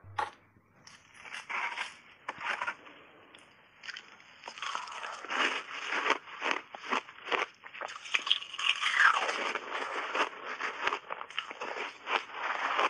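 Refrozen, reshaped ice being bitten and chewed up close to a clip-on microphone: a run of sharp cracks and crunches, sparse at first, then coming thick and fast from about four seconds in.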